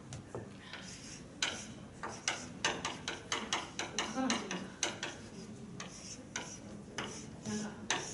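Chalk tapping and scraping on a blackboard while writing: a quick, irregular run of sharp taps starting about a second and a half in.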